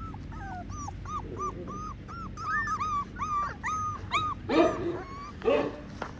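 Pembroke Welsh corgi puppies whining in a quick run of short, high cries, followed by two louder, deeper calls near the end.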